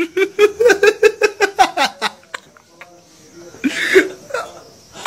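Bystanders laughing in a quick, even string of short voiced bursts, then a short harsh noisy burst about four seconds in.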